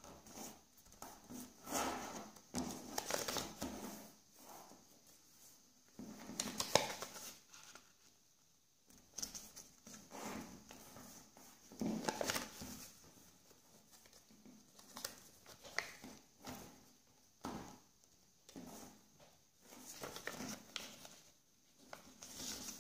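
A sheet of origami paper being folded and creased by hand on a wooden tabletop: irregular rustles and scrapes as fingers and fingernails slide along the paper and press the creases down, in short strokes with pauses between them.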